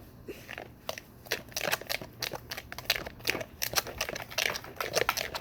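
Sticky homemade slime being squished and stirred, a quick irregular run of wet crackling clicks and squelches that gets busier after about a second.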